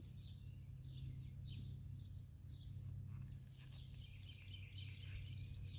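Birds chirping in short, repeated calls over a faint, steady low hum of background noise.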